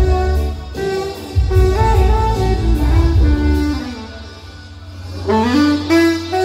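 Saxophone played live, a stepping melody over a heavy bass accompaniment. About four seconds in, the bass drops out and the saxophone pauses, then comes back with a quick rising run of notes.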